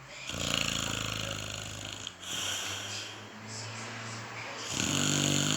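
Someone sleeping and snoring: a loud snore of about two seconds, a quieter snoring breath, then another loud snore near the end.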